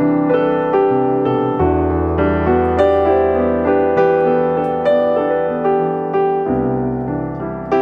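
Background piano music, a steady run of notes struck about two a second.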